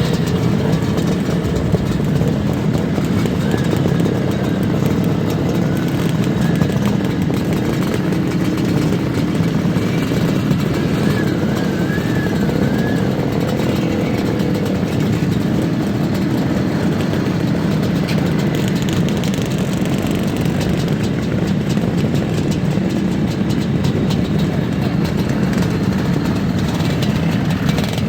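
Bultaco two-stroke single-cylinder motorcycle engines running steadily at a low, even speed.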